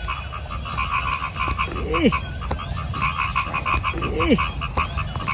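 A chorus of frogs calling in rapid pulses, with two short falling calls about two seconds and four seconds in, over a steady low rumble.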